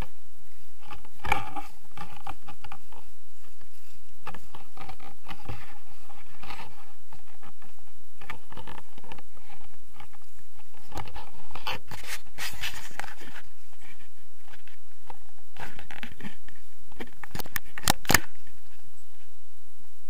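Handling noise from a handheld action camera: nylon puffer-jacket fabric rubbing and scraping against the camera, with irregular crackles and clicks that come in louder clusters about a second in, around the middle and near the end.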